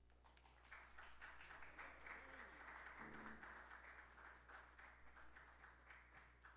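A small congregation applauding in a hall, a patter of scattered hand claps that eases off near the end.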